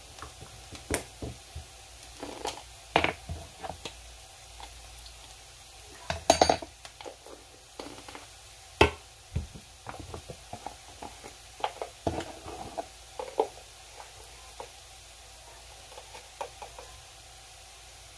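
Irregular clinks and knocks of kitchen utensils against a frying pan, a dozen or so with the loudest about six and nine seconds in, over a faint steady sizzle of diced onions frying.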